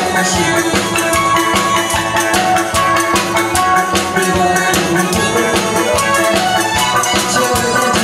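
Upbeat, loud stage music with a steady drum beat under held melody notes.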